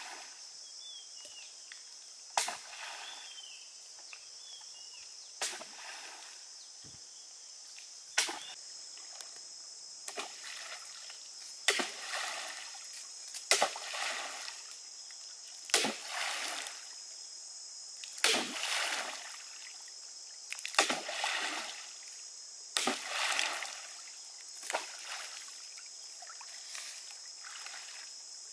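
Long bamboo pole striking and pushing through lake water as a bamboo raft is poled along. Each stroke is a sharp slap followed by a short splash, repeating about every two seconds, roughly a dozen times.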